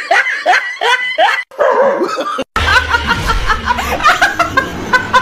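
People laughing hard: a run of high, falling laugh sounds about three a second, then after a brief break a woman laughing loudly and continuously.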